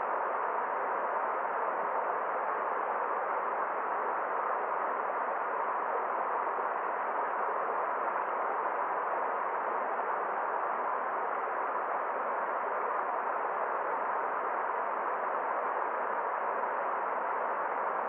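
Forest stream rushing over rocks and small cascades: a steady, even rush with little treble.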